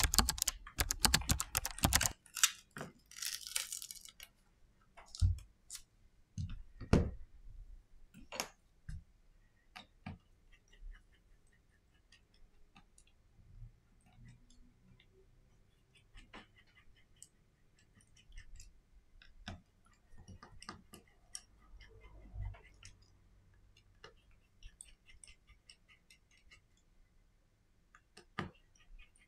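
Light clicks and taps of small hand tools and parts on a Xiaomi Redmi Note 9 Pro being taken apart, as a pin, screwdriver and tweezers work on the phone and its small screws. A quick run of clicks in the first couple of seconds gives way to scattered single clicks and soft handling noise.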